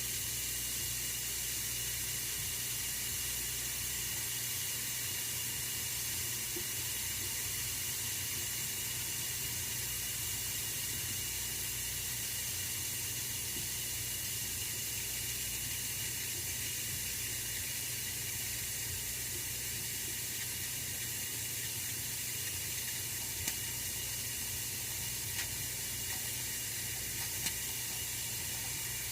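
Oil-filled radiator heater running with a steady hiss over a low hum, and a few faint ticks in the last few seconds.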